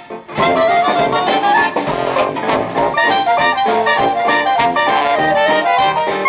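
Traditional jazz band playing together: cornet, clarinet and trombone lines over piano, guitar, drums and sousaphone. The ensemble comes back in after a short break at the very start and keeps playing loudly.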